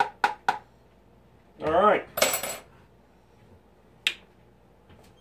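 A utensil clicking quickly against a plastic mixing bowl while stirring a thick sauce, about four taps a second, stopping about half a second in. A short voice sound and a brief hiss follow, then a single click about four seconds in as a ketchup bottle's cap is worked open.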